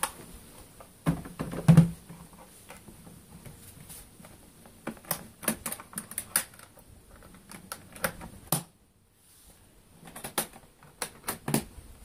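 Hive parts being handled while the beehive is closed up: the roof set onto the boxes, then a run of sharp clicks and light knocks of plastic and wood, with two heavier knocks about a second and a half in.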